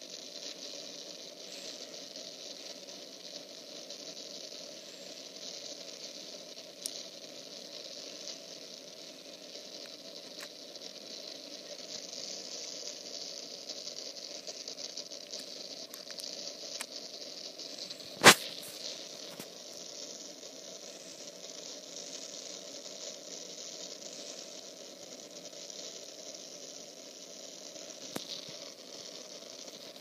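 Steady hiss, with one loud sharp click a little past the middle and a couple of fainter ticks before and after it.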